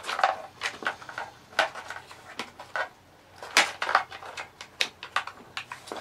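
Hard plastic parts of a vacuum cleaner's handle housing and switch clicking and knocking as they are handled and fitted together by hand, in an irregular series of short clicks.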